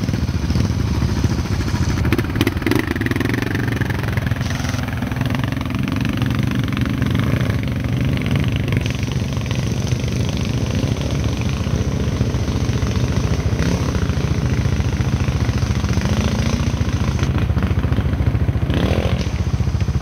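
Several ATV engines running and revving as the quads wade through a shallow, rocky river, with water splashing and churning around the wheels. One engine revs up near the end.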